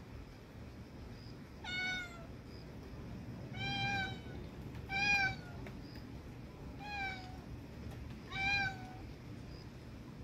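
Street cat meowing repeatedly: five short meows, one every one and a half to two seconds, each dipping slightly in pitch at the end.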